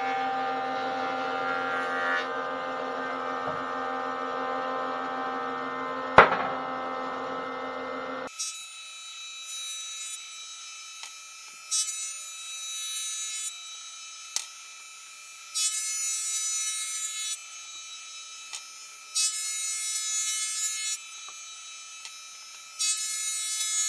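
Delta benchtop thickness planer running as larch keel timbers are fed through it: a steady motor hum, with a sharp knock about six seconds in. From about eight seconds the sound turns thinner, with bursts of high hiss a second or two long every few seconds.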